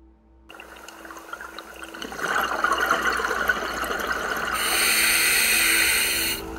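Underwater sound of a scuba diver breathing through a regulator: a bubbling, rushing noise that grows louder about two seconds in, then a louder hiss that cuts off sharply near the end.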